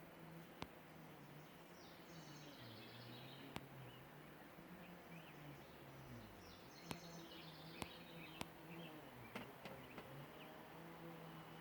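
Faint birdsong: short chirping phrases repeated in three bouts, near the start, in the middle and at the end. Under it runs a low steady hum that wavers slightly in pitch, with a few sharp clicks.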